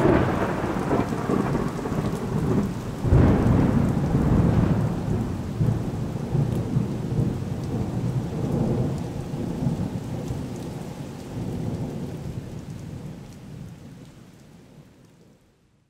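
Steady rain falling on a small tent, heard from inside, with a low rumble of thunder swelling about three seconds in. The whole sound then fades out gradually to silence near the end.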